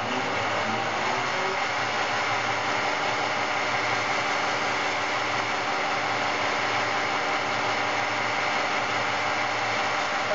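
Fehlmann Picomax 50 milling machine spindle running steadily at about 1350 RPM, driven by its three-phase induction motor on the low-speed winding, fed at 100 Hz from an inverter. A steady hum with several steady tones over a hiss.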